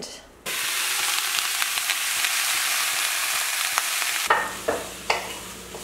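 Mushrooms and green vegetables frying in olive oil in a pan. A loud, steady sizzle with fine crackles starts about half a second in, then drops to a quieter sizzle with a few light knocks about four seconds in.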